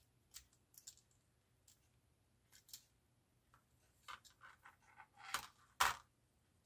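Scattered sharp clicks and short scrapes of hard 3D-printed plastic gears and frame parts being handled and fitted together, the two loudest clicks coming about five and a half and six seconds in.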